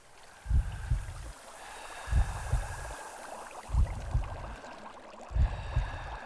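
A slow heartbeat sound effect, a low double thump repeating about every second and a half, over the steady hiss and bubbling of water.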